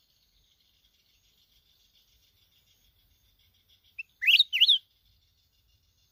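Red-whiskered bulbul giving one short, loud call about four seconds in: two quick phrases of sliding whistled notes, over a faint steady high buzz.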